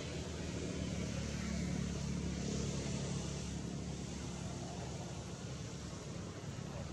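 Low rumble of a distant vehicle engine, swelling a couple of seconds in and then easing off, over a steady hiss.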